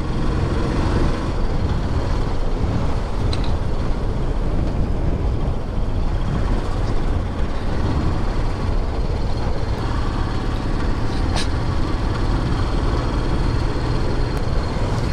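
Motorcycle engine running steadily while riding, mixed with road and wind noise. One short sharp click sounds about three quarters of the way through.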